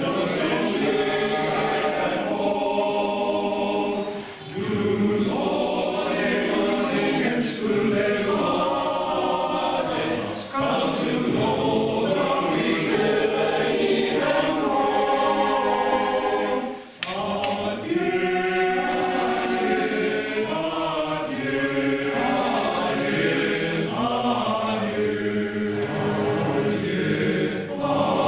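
Male choir singing in several voice parts, without accompaniment. There are brief breaks between phrases, the clearest about four seconds in and a little past halfway.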